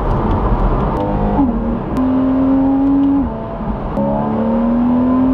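Porsche Cayman engine pulling under acceleration, heard from inside the cabin. Its note climbs slowly, eases off and drops about three seconds in, then climbs again.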